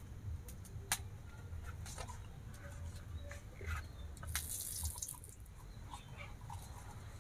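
Straw burning in a clay stove, crackling with scattered sharp snaps over a low steady rumble, with a short hiss about four and a half seconds in.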